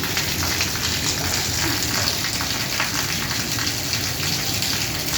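Steady rain falling on a rooftop: a continuous dense hiss with the patter of individual drops.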